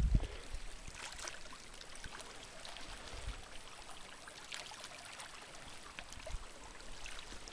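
Faint lapping and trickling of shallow lake water against a flat rock shoreline, with scattered small splashes.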